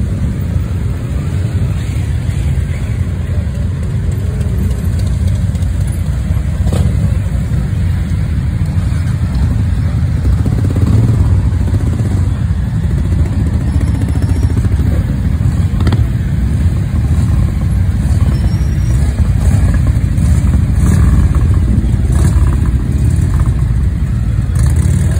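Many motorcycle engines running as a procession of bikes rides slowly past at low speed. They make a steady, deep, overlapping rumble that grows a little louder towards the end.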